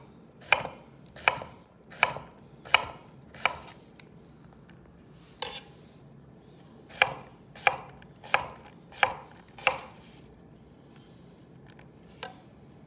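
Chef's knife dicing an onion on a wooden cutting board: slow, even cuts, each ending in a sharp knock of the blade on the wood about 0.7 s apart, in a run of six, a single cut after a short pause, then a run of five, and one lighter knock near the end.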